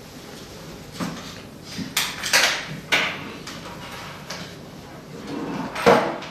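A series of knocks and clicks as the handle pieces and parts of a cryolipolysis machine are handled: about five sharp knocks, with a short scraping sound about two seconds in, and the loudest knock near the end.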